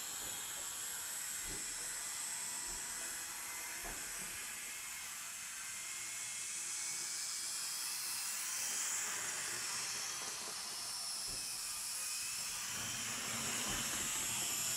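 Z-scale model train running along its track: a thin, high-pitched small-motor whine over a steady hiss, with a few light clicks.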